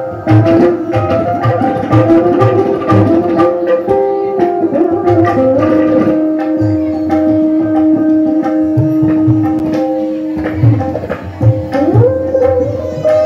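Instrumental Indian devotional background music: steady tabla strokes under a held melodic line on a string instrument, with notes that slide in pitch, one rising slide near the end.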